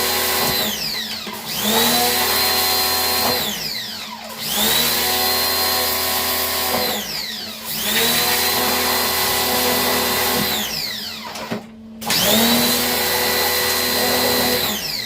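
A small electric motor spins up to a steady high whine, runs a few seconds, then coasts down with falling pitch, about four times in a row.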